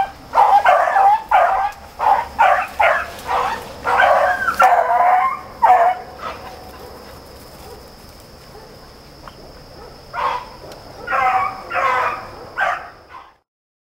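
Beagles baying as they run a rabbit: a quick string of bawling cries, a lull of a few seconds, then a few more bays before the sound cuts off suddenly near the end.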